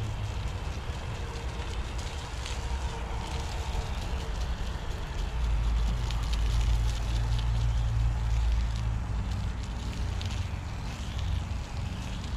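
Garden hose running through a Griot's Garage hose-end foam sprayer, spraying soapy foam onto a car with a steady hiss, under a continuous low rumble that is loudest in the middle.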